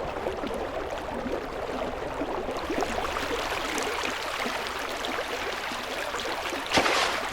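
Steady rushing water, with a brief louder whoosh near the end.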